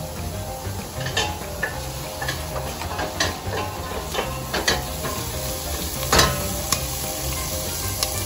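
Diced onion, carrot, celery, garlic and ginger sizzling in oil in a stainless steel pot while being stirred with a spoon. The spoon scrapes and knocks against the pot several times.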